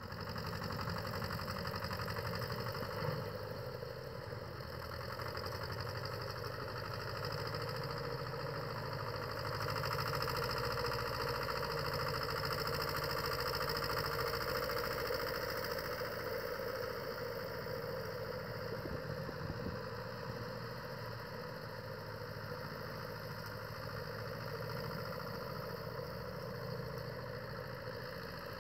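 Engine of a Bombardier J5 tracked snow vehicle running steadily while it is driven.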